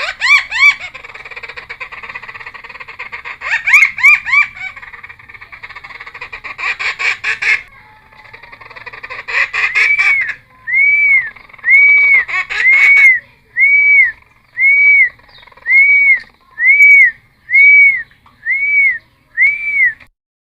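Cucak timor, a friarbird, singing: a varied run of sweeping and rapid chattering notes, then a string of about ten identical arched whistled notes at about one a second.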